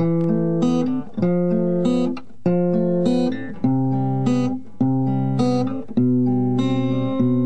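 Instrumental song intro on guitar: a slow repeating chord progression, with a new chord picked about every second and a quarter and the notes left ringing.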